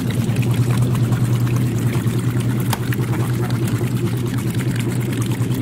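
Maytag top-loading washing machine agitating a load of wet laundry: a steady motor hum under water sloshing in the tub. The machine is running slow, which the owner thinks may be a loose belt.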